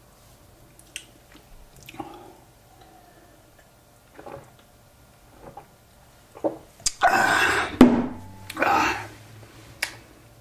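A person drinking cider from a glass: soft swallowing sounds, then two loud breathy exhalations in the second half, and a sharp click as the glass is set down.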